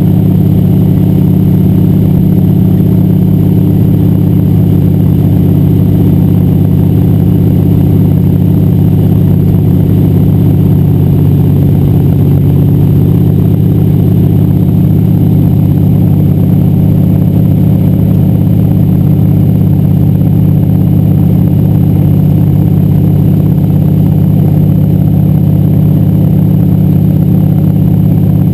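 Single-engine floatplane's engine and propeller running steadily, loud and unchanging, heard from inside the cockpit.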